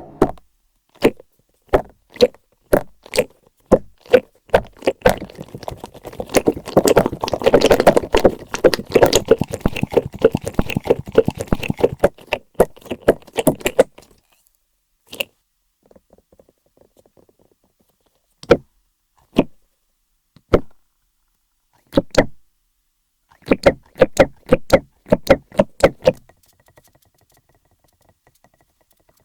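Pop-out squishy fidget toy being squeezed so its pieces pop out: sharp popping clicks. They come singly at first, then in a dense rapid run lasting several seconds, then sparse pops with a quick burst of them near the end.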